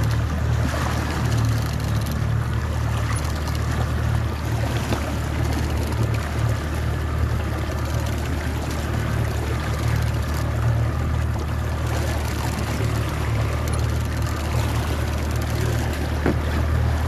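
Boat engine running steadily with a constant low hum, over the hiss of water moving past the hull.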